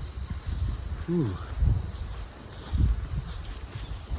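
Steady high-pitched chorus of crickets, with low thumps on the microphone that are the loudest sounds.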